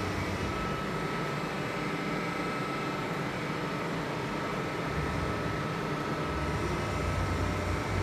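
Steady machine hum with a thin constant whine from a 1986 Maho MH 1000 C milling machine standing powered up; a low rumble thickens about halfway through.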